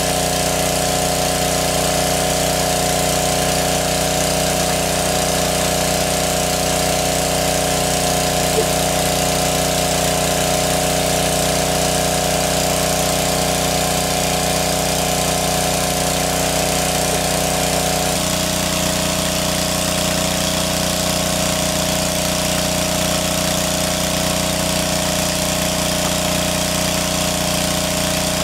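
Small engine-driven water pump running steadily at a constant speed while it pumps water out of the pond through its hose. About two-thirds of the way through, its steady note shifts slightly and abruptly.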